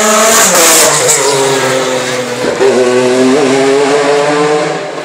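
Race car passing close at speed, with a loud rush in the first second, followed by its engine note carrying on as it goes up the street, the pitch dipping and rising again about halfway through.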